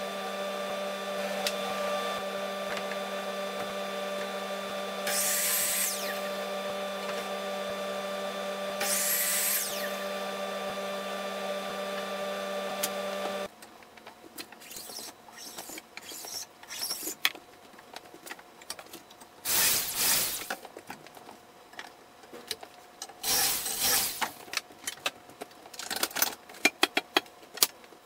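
A dust extractor runs with a steady hum while the miter saw makes three short cuts, each a brief rise and fall of motor whine. About halfway through the hum cuts off suddenly. Knocks and clatter of wooden boards being handled follow, with two longer rough scraping stretches.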